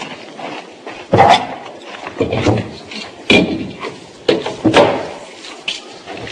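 Wooden kitchen cupboard doors being opened and shut while someone rummages inside: about six sharp knocks and bangs, roughly one a second.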